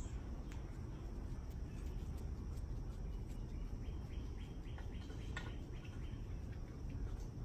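Outdoor background noise: a steady low rumble with scattered faint high chirps and ticks, and a thin high tone for a few seconds midway.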